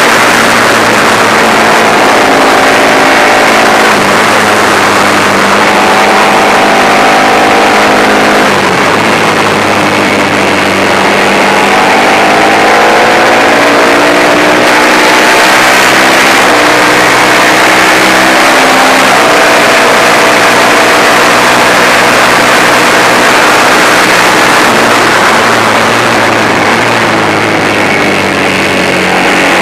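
Manx Norton single-cylinder four-stroke racing engine at full race pace, its note repeatedly climbing in pitch and dropping back every few seconds, with heavy wind rush over the bike-mounted camera.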